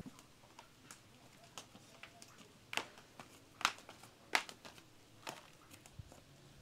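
A few light clicks and taps, the loudest four in the middle, from dishes shifting on carried trays and footsteps on tile.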